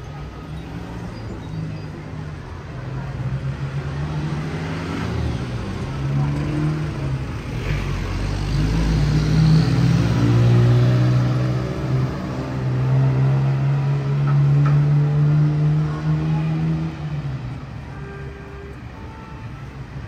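A motor vehicle's engine running close by, building up to its loudest through the middle and fading near the end.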